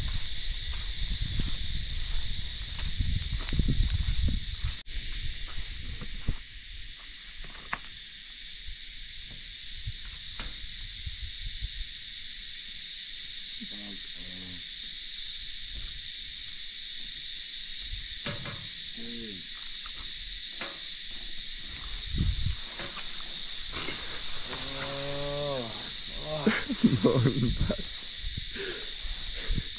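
A steady high-pitched insect chorus, with low rumbling over it for the first five seconds. In the second half several drawn-out calls sound, each falling in pitch, the longest and loudest near the end.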